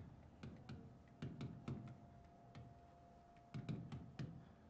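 Stylus tapping and clicking against an interactive whiteboard's screen during handwriting: about ten faint, irregular taps, over a faint steady hum.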